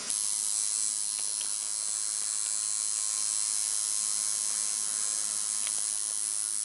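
Coil tattoo machine buzzing steadily at a high pitch as it drives the needle into skin.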